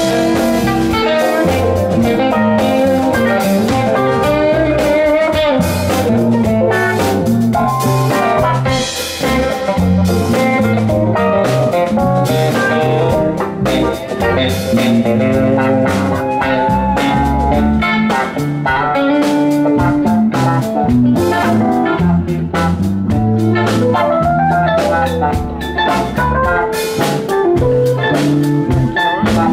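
Live rock band playing an instrumental jam with no vocals: electric bass, electric guitars, drums and keyboards.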